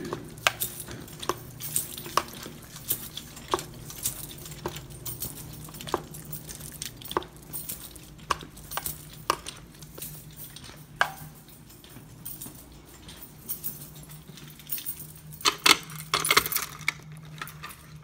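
Footsteps on a hard floor, roughly one step a second, with a light metallic clink of jangling keys, over a low steady hum.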